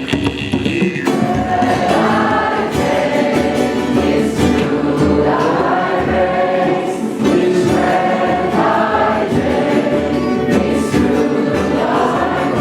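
A group of people singing a chant together, several voices in unison.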